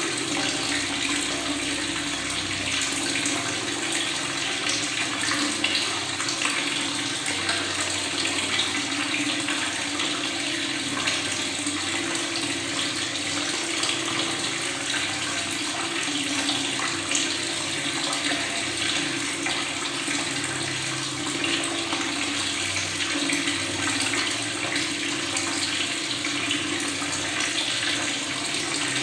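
Tap water running steadily, with a continuous gurgling and bubbling as the stream pours into water.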